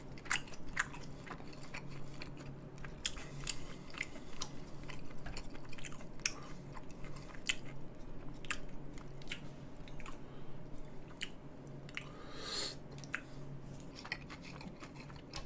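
Close-miked chewing of grilled beef brisket and kimchi: wet mouth clicks and smacks at an irregular pace, with a brief breathy hiss near the end.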